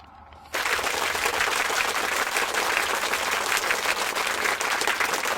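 Fishing reel drag clicking in a fast, steady ratchet as a big, heavy fish pulls out line; it starts suddenly about half a second in.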